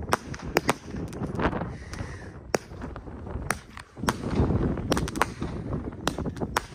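Fireworks going off: a string of sharp bangs and crackles at irregular intervals, with a denser low rumble of launches and bursts about four seconds in.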